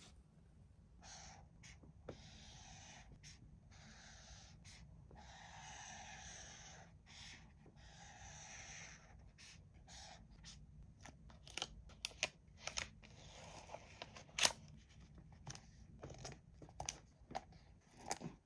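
Toy packaging being handled and opened: long stretches of rustling, tearing noise, then a quick run of sharp clicks and snaps over the last several seconds.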